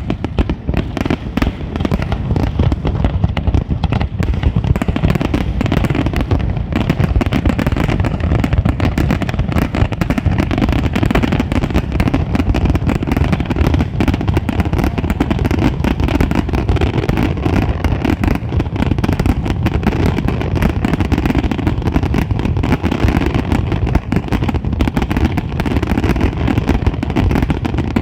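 Large fireworks display: a dense, unbroken barrage of bangs and crackling, heaviest in the low booms.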